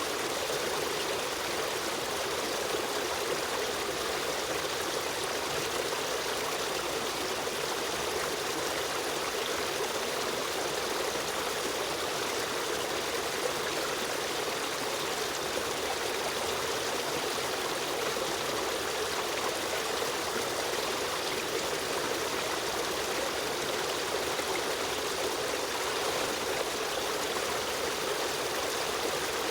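A river stream running and trickling over stones: a steady, unbroken rush of water.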